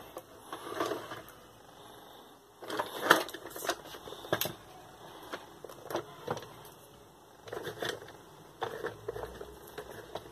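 Plastic wheels and inner mechanism of an Estrela Snif Snif Xereta pull-along toy dog clicking and clattering as the toy is rolled and its wheels are turned by hand, in irregular clusters of sharp clacks with short pauses between.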